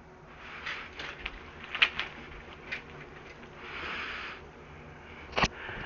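Scattered light clicks and a brief rustle of handling noise close to the microphone.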